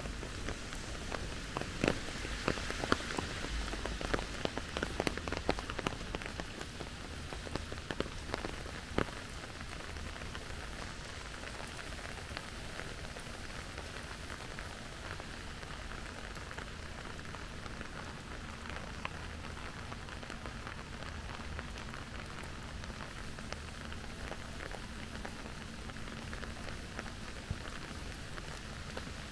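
Steady rain falling. Over about the first nine seconds many sharp, close drops tap out loud individual ticks above the rain, which then settles into an even patter.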